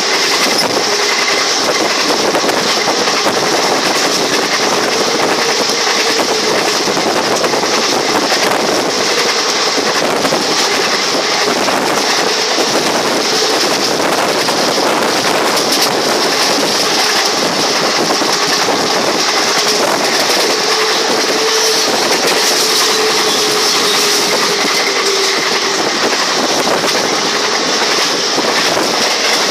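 A passenger train running at speed, heard from on board: steady rushing noise with the clickety-clack of the wheels over the rail joints and a faint wavering hum.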